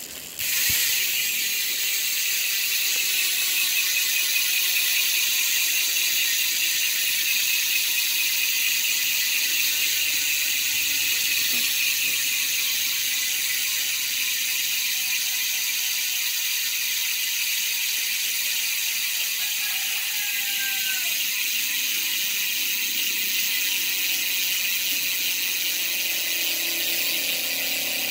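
Aeroic AM3.5 bicycle hub freewheeling: its pawls give a loud, continuous ratcheting buzz as the wheel is spun and left to coast. The buzz starts suddenly about half a second in and its pitch falls slowly as the wheel slows.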